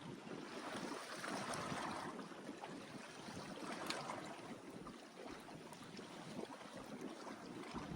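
Water sloshing against the hull of a small fishing boat at sea, a steady wash with a few light ticks and a sharper knock about four seconds in.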